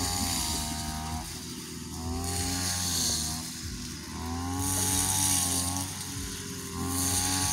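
Small petrol engine of a paddy-harvesting machine running under load. Its pitch sags and recovers about every two and a half seconds, with a hissing rush that comes and goes on top.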